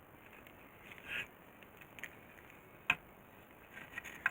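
Small handling noises of a circuit board and parts on a workbench: a short scrape about a second in, then a single sharp click about three seconds in and another near the end.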